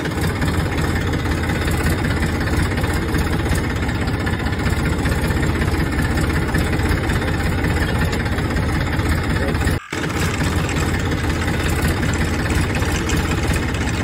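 Tractor engine idling steadily. It starts while the toy is still in its box, so it is a dubbed-in recording rather than the toy's own motor. It drops out for an instant about ten seconds in.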